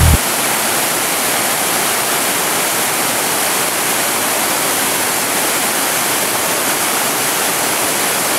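White water of a steep mountain stream cascading over boulders: a loud, steady, even rush of water close to the microphone.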